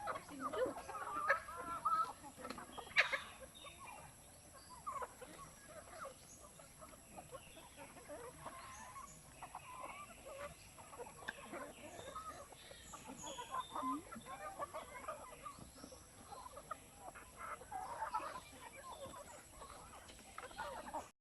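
A flock of free-range chickens clucking, many short overlapping calls, louder in the first few seconds and softer after.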